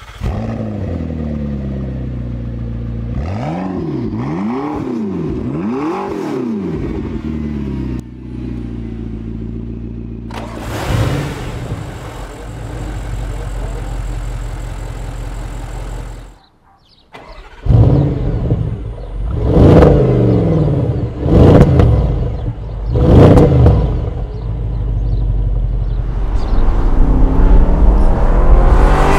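Audi S7 Sportback's twin-turbo V8 idling and being blipped: three quick revs early on, a brief cut-out, then a run of louder, sharper revs. Near the end it rises steadily as the car accelerates away.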